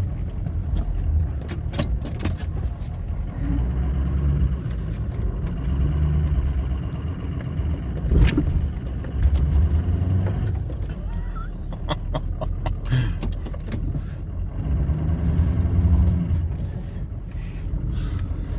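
Pickup truck engine revving up and easing off in several pushes as the snowplow shoves a fallen pine tree across the road. Sharp knocks and cracks come through, the loudest about eight seconds in.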